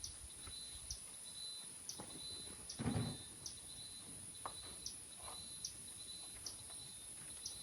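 Crickets or other insects keep up a steady high trill, with a short chirp repeating a little more than once a second. About three seconds in there is a single louder clunk.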